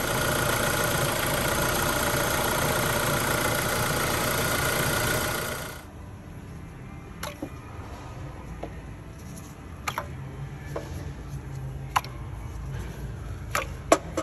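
Renault Megane engine running loudly, then shut off about six seconds in. Afterwards a quiet low hum remains, with a few sharp clicks and taps.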